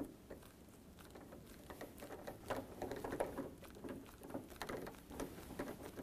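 Faint, irregular small clicks and scrapes of #2 square-drive screws being fitted and turned by hand with a screwdriver into a refrigerator cabinet's hinge holes.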